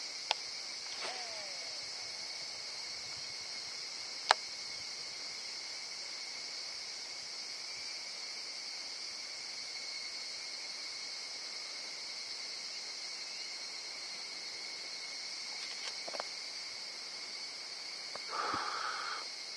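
Steady chorus of summer insects, a high buzzing that holds unchanged throughout. Two sharp clicks come in the first few seconds, and a short, louder noise comes near the end.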